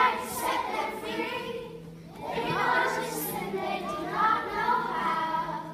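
A group of children singing together, in two phrases with a short break about two seconds in.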